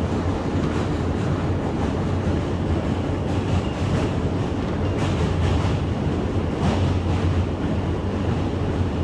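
New York City Subway train running, heard from inside the car: a steady low rumble of wheels and motors with a faint rattle of the rails.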